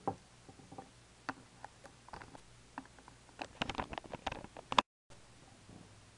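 Littlest Pet Shop plastic toy figures and props being handled and set down on a wooden tabletop: scattered light clicks and taps, thickest about three and a half to five seconds in, where the sound briefly cuts out.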